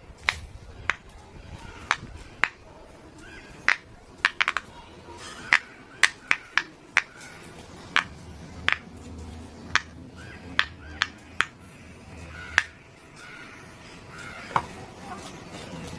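Silicone pop-it fidget toy being pressed, its bubbles popping in sharp, separate clicks at an uneven pace, about twenty over the stretch.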